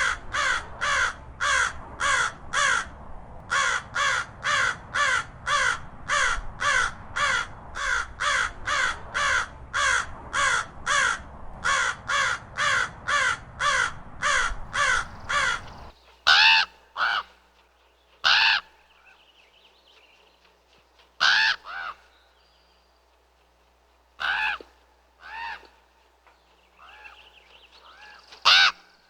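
Ravens calling: a fast, even run of hoarse calls at about two to three a second for the first half. After an abrupt change in the recording, single calls and pairs come several seconds apart over a quieter background.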